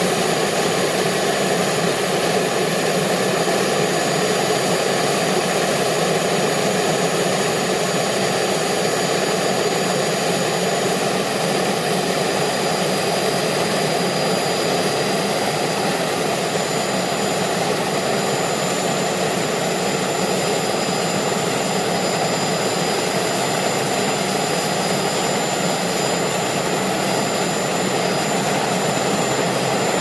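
Turbine-powered jet helicopter running steadily: an even, unbroken engine noise with two high, steady whines above it. The higher whine grows louder a little past halfway through.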